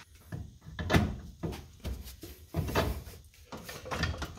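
Irregular clunks and scrapes of metal on metal as the steering knuckle is worked onto the upper ball joint stud of a 1983 Buick Regal's front suspension.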